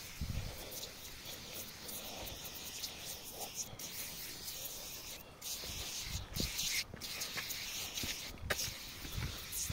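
Aerosol foam cleaner hissing out of a spray can onto a motorcycle's plastic fairing, in long bursts broken by several brief stops, with a few low bumps from handling.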